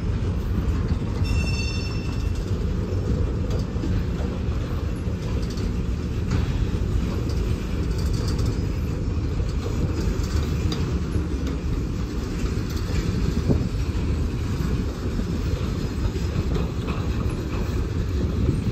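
Freight train cars rolling past on the rails: a steady low rumble with scattered clicks, and a brief high-pitched wheel squeal about a second in.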